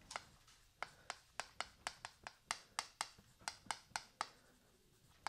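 Chalk tapping and scraping against a blackboard in short strokes while writing: a series of quick clicks, about three a second, that stops about a second before the end.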